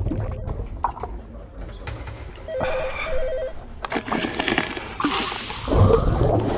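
Wet mouth sounds, saliva and lips squelching and smacking, loudest in a noisy stretch in the second half. Around the middle a muffled electronic phone trill rings twice in quick succession.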